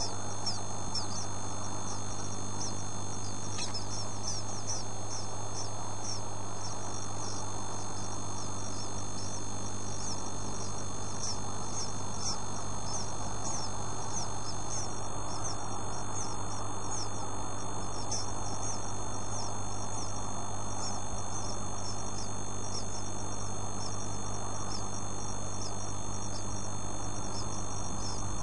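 Bird nestlings cheeping: thin, high, falling peeps repeating several times a second throughout, over a steady low electrical hum and hiss.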